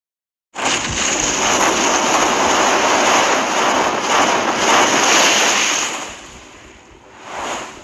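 Intro-animation sound effect: a loud rushing whoosh that starts suddenly about half a second in, holds for about five seconds, then fades, with a short second swell near the end.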